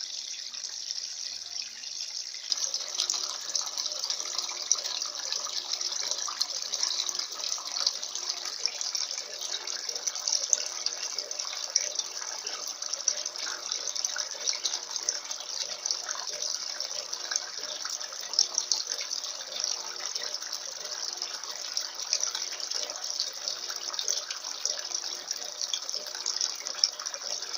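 Electrolux LF80 top-loading washing machine filling its drum with water for a high-level wash: a steady rush of water pouring in, which turns fuller and louder about two and a half seconds in.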